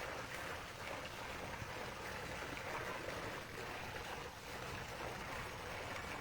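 Steady outdoor background rush, with a few faint light taps scattered through it.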